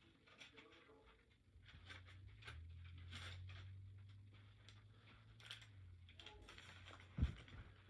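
Near silence: faint scattered rustles and ticks over a low hum, with one short thump near the end.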